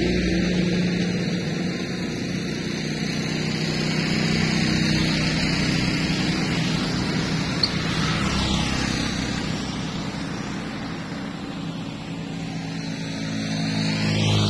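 A car running on the road: a steady engine hum under even road and wind noise, with no sudden events.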